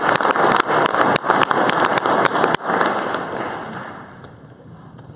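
Audience and panel applauding: many hands clapping fast, stopping fairly suddenly about two and a half seconds in and fading out over the next second or so.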